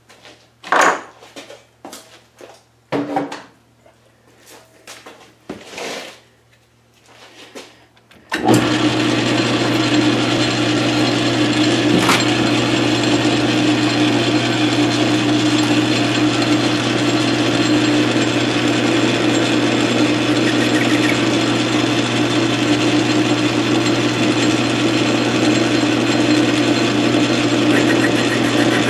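A few scattered clicks and knocks, then about eight seconds in a South Bend 13-inch lathe is switched on, and its motor and spindle run steadily with a hum.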